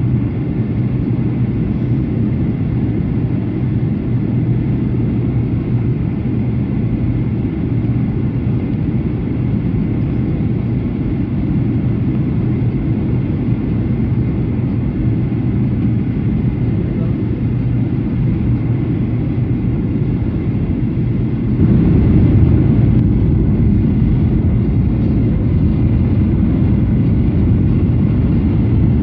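Steady engine and airflow drone inside the cabin of a Boeing 737-800 in flight, from its CFM56-7 turbofans. The drone grows noticeably louder and deeper about three-quarters of the way through.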